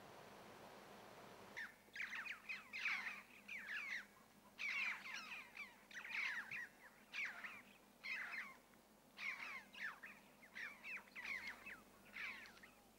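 A flock of birds calling: many harsh, downward-slurred calls overlapping in quick clusters, starting about a second and a half in and going on in bursts with short gaps.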